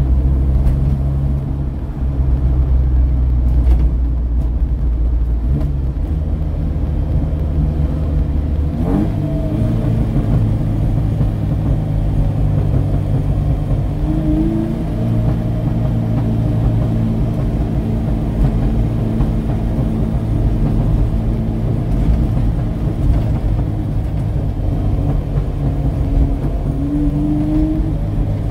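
Chevrolet Chevette's four-cylinder engine heard from inside the cabin while driving, accelerating and settling as the driver changes gear, the engine note shifting in pitch several times with a brief rising rev about a third of the way in.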